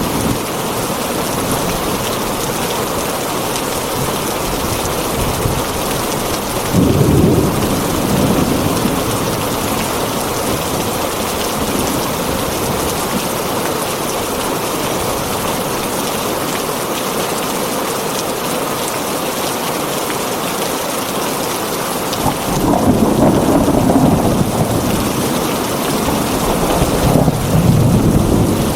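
Heavy rain falling steadily on a tin roof, with low rumbles of thunder about a quarter of the way in and twice more near the end.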